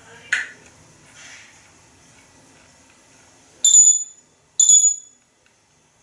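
Two short, high-pitched beeps about a second apart, each starting abruptly, after a brief sharp click near the start.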